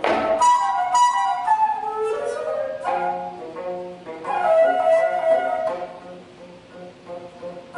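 Daegeum, the large Korean bamboo transverse flute, playing a melody of held and sliding notes over plucked geomungo strokes.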